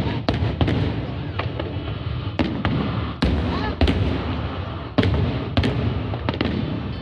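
Aerial fireworks bursting: about a dozen sharp bangs at uneven intervals over a steady low rumble, the loudest a little after three seconds and at five seconds.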